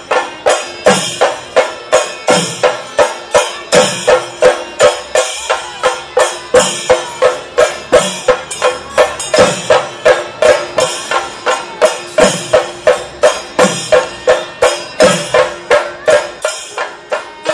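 Kerala temple percussion music: drums struck in a steady, even beat of about two and a half strokes a second, over a held tone.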